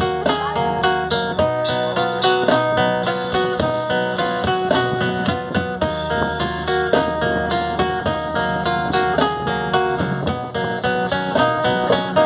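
Live band playing the instrumental break of a carimbó song: a plucked-string melody over steady, rhythmic percussion.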